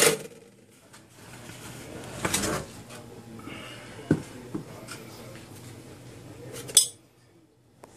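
Glassware being handled on a stainless steel sink: a short rustling scrape about two seconds in, a sharp click a little after the middle, and a brief knock near the end.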